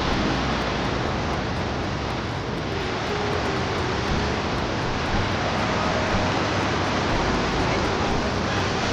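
Steady rush of water pouring over the Lech Falls.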